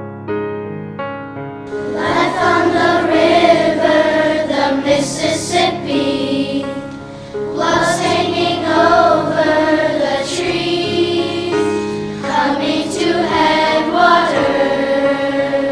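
A choir singing a slow song with piano accompaniment. A few piano notes sound alone before the voices come in about two seconds in, and the singing breaks briefly twice between phrases.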